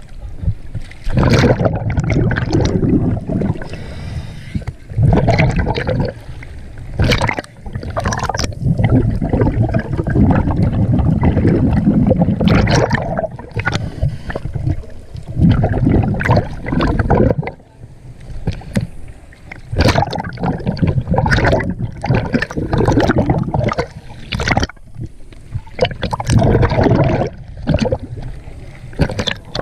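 Seawater sloshing and gurgling over the microphone as it bobs at the surface and dips under, in loud, uneven surges.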